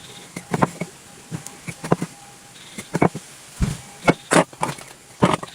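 An irregular series of short, sharp knocks and clicks, about a dozen in five seconds, from hands working with wooden pieces and tools.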